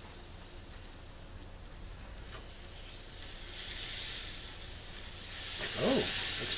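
Swordfish steak sizzling on the hot grate of a Weber Jumbo Joe charcoal grill as it is turned over with a spatula; the hiss grows louder in the second half once the raw side meets the grate.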